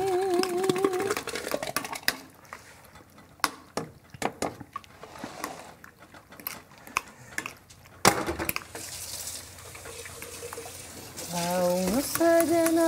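Cutlery and dishes clinking and tapping on a kitchen counter as food is mixed in a bowl, with one sharp clack about eight seconds in. A voice holds a wavering note at the very start, and another voice starts singing a few notes near the end.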